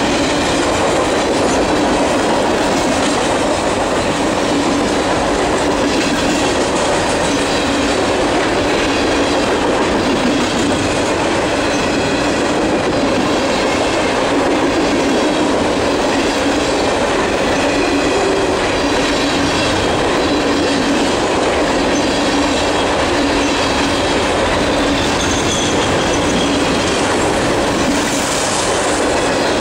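CSX freight train of green trash-container flatcars rolling past close by: a steady rolling noise of steel wheels on the rails, with no break.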